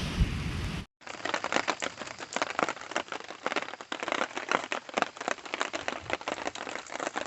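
Steady noise cuts off abruptly about a second in. Then comes heavy rain, a dense, irregular patter of drops hitting a surface close by, during a storm.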